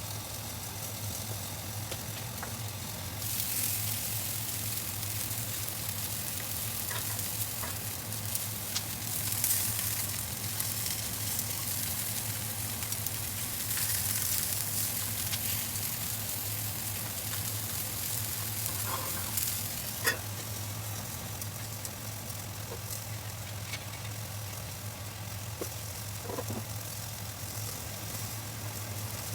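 Salmon sizzling as it fries in a pan, the sizzle swelling and easing in waves over the steady hum of a kitchen fan. A sharp click comes about twenty seconds in.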